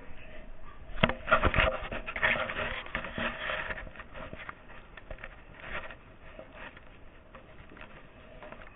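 Rubbing and rustling noises with a couple of sharp knocks about a second in, busiest over the first few seconds and then thinning to faint scuffs.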